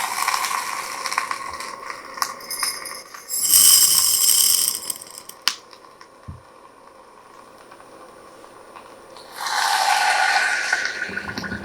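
Red-hot ball hissing and crackling against popcorn kernels, in two bursts about three and a half and nine and a half seconds in, with a few sharp isolated pops or clicks between them.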